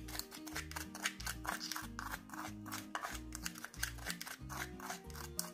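Background instrumental music with a steady bass line, over a metal spoon repeatedly scraping and clicking against a small ceramic bowl as a seasoning mix is stirred.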